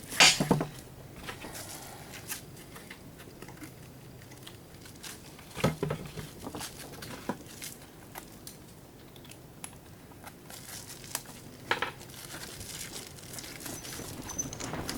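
Plastic and metal parts of an electric can opener being handled and pried apart by hand: scattered light clicks and rustling, with sharper knocks near the start, about six seconds in and about twelve seconds in.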